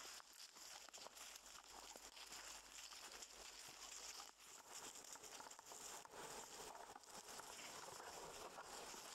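Faint rustling and crunching of dry fallen leaves under walking feet and dog paws, a steady run of small crackles.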